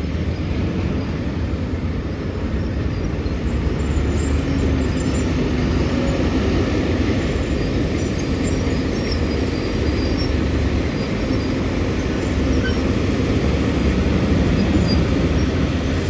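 Heavy diesel engine of a Tata Hitachi excavator running steadily while working, a dense low engine sound with a faint steady hum on top.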